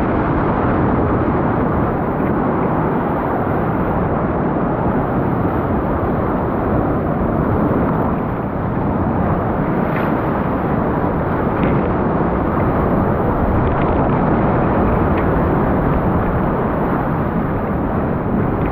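Loud, steady rush of whitewater as a raft runs a rapid, heard close to the water's surface, with a few faint clicks.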